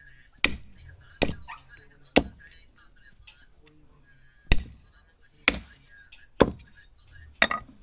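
Seven sharp chopping blows from a heavy blade, roughly a second apart with a longer pause midway.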